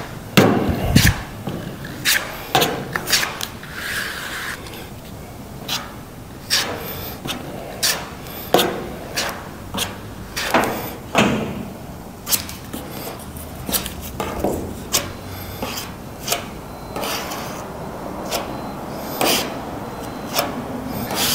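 Plastic spreader scraping and slapping body filler across a car's steel roof: a run of short, irregular strokes, each a brief scrape or tap.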